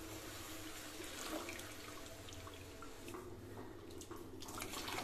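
White cornflour batter pouring into a steel kadai of sugar syrup, a steady splashing pour. Drips and small clicks follow near the end as the last of it is tipped in from a spoon.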